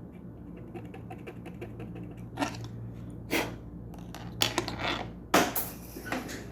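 Light clicks and taps of small soldering tools on a circuit board, about six of them scattered through, the loudest near the end, over a steady low hum.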